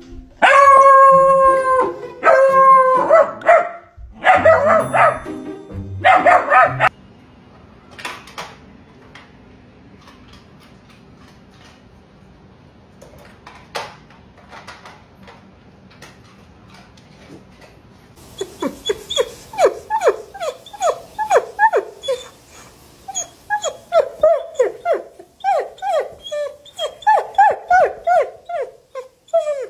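Dogs vocalising. Loud, drawn-out howls and barks fill the first seven seconds, followed by a quieter stretch with scattered clicks. From about eighteen seconds in, a German Shepherd whines and yips in quick, rising-and-falling cries, about two a second.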